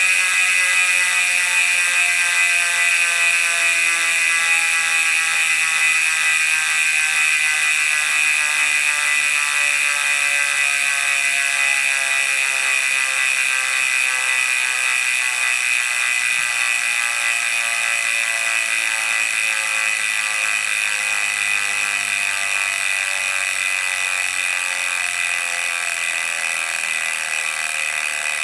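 Koozer XM490 Pro rear hub's freehub buzzing as the wheel spins freely, its clicks so fast they merge into one steady buzz. The buzz slowly drops in pitch and fades a little as the wheel loses speed.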